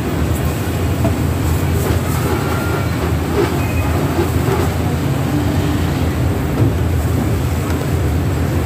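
A steady low rumble of mechanical or street background noise, with a few faint clatters above it.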